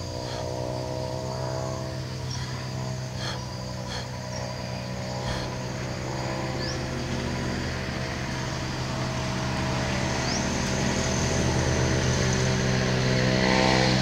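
A motor vehicle's engine running at a steady pitch, slowly growing louder as it comes closer.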